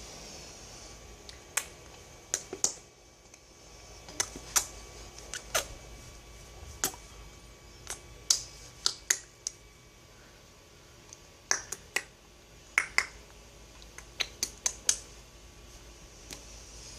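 Sharp mouth clicks, tongue clicks traded back and forth as a sound-imitation game between a mother and her baby. They come irregularly, often in quick pairs or short runs, with pauses of a second or two between.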